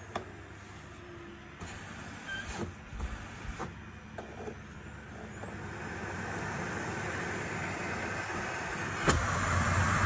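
Electrolux Pure D8.2 Silence vacuum cleaner motor running while its power dial is turned, with several clicks from the dial in the first half. About halfway through the motor's whine rises as it speeds up. Near the end a sharp click brings the motor up louder still.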